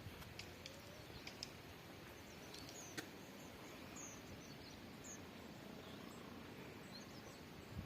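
Faint rural outdoor quiet with a few brief, high bird chirps about midway, and some scattered faint clicks.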